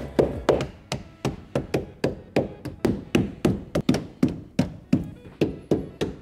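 Rubber mallet with a masking-tape-wrapped head striking a rubber door seal on a VW T5 van's door-aperture flange, about three strikes a second in a steady run, seating the seal all the way home.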